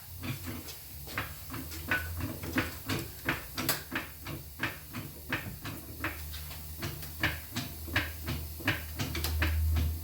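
Car jack being worked to raise the vehicle: a steady run of short clicks, about three a second, over a low steady hum.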